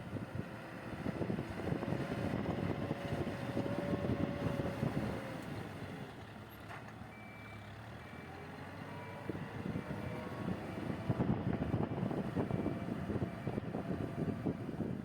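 Diesel engine of a heavy construction machine running, with its reversing alarm beeping steadily from about halfway through.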